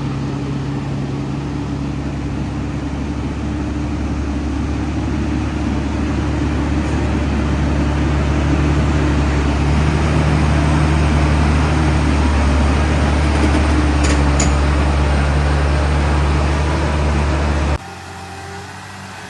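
Loaded logging truck's engine running hard under load, growing slowly louder. About 18 seconds in it cuts suddenly to a quieter engine sound.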